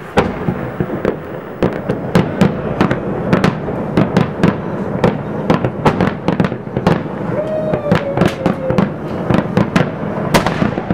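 Fireworks display: a rapid, dense run of bangs and crackling pops from bursting shells, several a second, over a constant low rumble.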